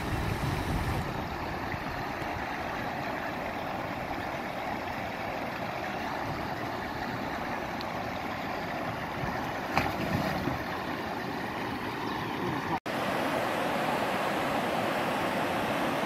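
River water rushing over a low rock ledge in a small waterfall, a steady rushing. One brief louder moment about ten seconds in; after a sudden cut about thirteen seconds in, the rushing is a little louder.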